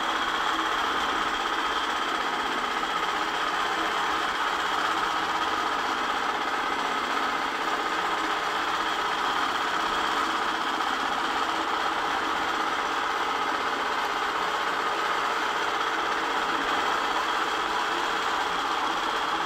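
Longarm quilting machine stitching steadily: the needle runs at a fast, even rate over the continuous hum of the machine's motor.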